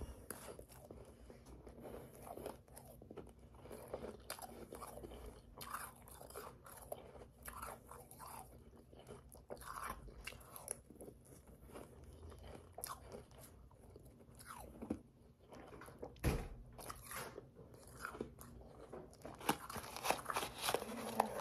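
Mouthfuls of powdery, slushy ice being chewed close to the microphone: irregular soft crunches that grow denser and louder near the end, with one sharp click about sixteen seconds in.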